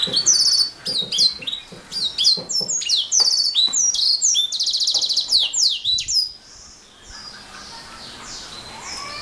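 Domestic canary singing: quick series of high, downward-sweeping notes and a fast rattling trill, loud for about six seconds, then softer song carrying on.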